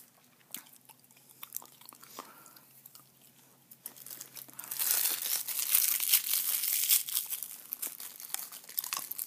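Soft, close-up clicks of gum chewing, then from about four and a half seconds in a loud crinkling rustle lasting about three seconds as hands handle a paper envelope, after which the soft clicking goes on.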